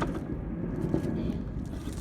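Low, steady rumble of wind buffeting a phone's microphone.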